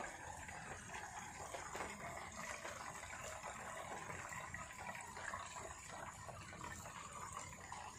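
Faint, steady trickle of nutrient water running through the PVC channels of an NFT hydroponic system, with a thin high hiss over it.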